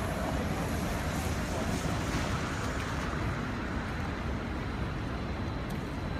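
Busy city street ambience: a steady wash of traffic noise with a low rumble.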